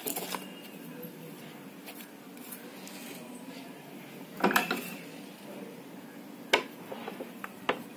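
Soft handling of soil in a plastic planter at the start, then a steady low hum with a short clatter about four and a half seconds in and a few sharp clicks or knocks near the end.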